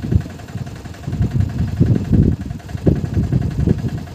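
Wind buffeting the microphone: uneven low rumbling gusts that swell and drop with no steady rhythm.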